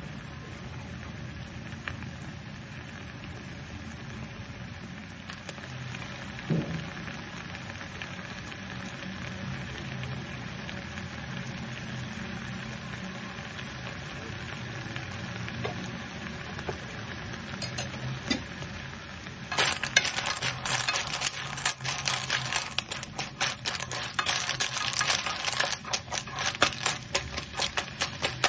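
Snails in their shells sizzling steadily in sauce in a frying pan. About two-thirds of the way in, a spatula starts stirring them, and the shells clatter loudly against each other and the pan.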